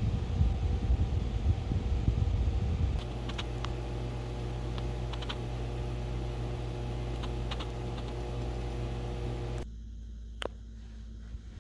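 Ceiling fan running: a steady electric motor hum with a low rumble of moving air. The rumble eases about three seconds in, a few faint clicks sound, and the hum drops away abruptly near the end.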